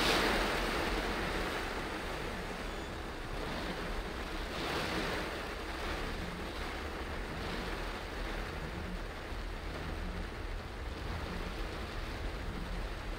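A car driving in heavy rain: a steady hiss of tyres on a wet road and rain falling. It is louder at the start and eases off over the first couple of seconds, with small swells a few seconds in.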